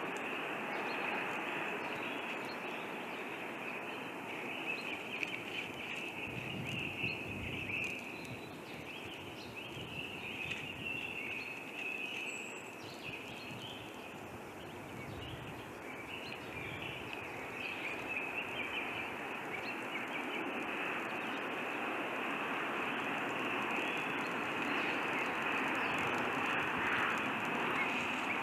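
Steady forest ambience at an eagle's nest: a constant hiss with faint, scattered bird calls through it and a few soft low bumps.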